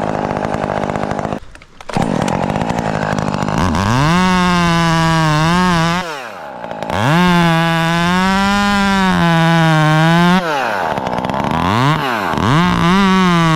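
Chainsaw running, throttled up to a high whine in several long pulls of a few seconds each and dropping back sharply to a low idle between them.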